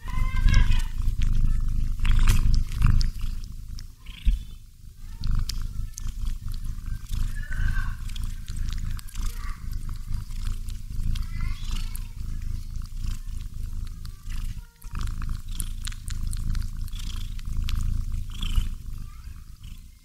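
Domestic cat snoring close to the microphone, a continuous low rumble that swells and eases with its breathing. Faint high chirps sound over it now and then.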